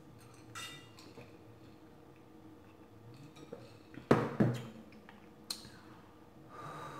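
A spoon clinking twice against a glass bowl of butter sauce about four seconds in, with a lighter tap a little later.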